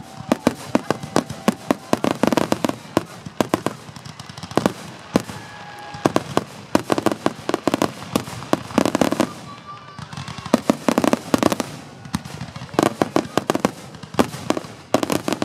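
Fireworks display: aerial shells bursting in a continuous run of sharp, overlapping bangs, with several dense volleys of rapid pops.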